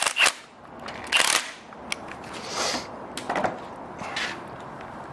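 Metal tools and compressor parts being handled, with a series of separate clinks, clatters and scrapes.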